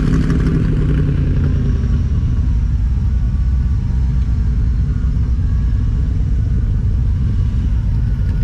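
AC Cobra replica roadster's engine running at low revs, a steady, deep engine note.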